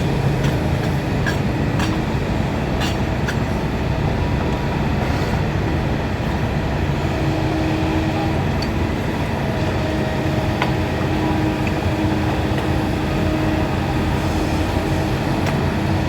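Heavy diesel machinery running steadily, an excavator's engine and hydraulics working, with a few light clanks and clicks.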